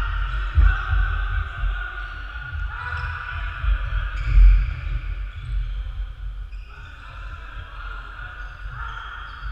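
Echoing sports-hall ambience during play: dull thuds of footfalls on the wooden court, over a steady high-pitched tone that drops out briefly a few times.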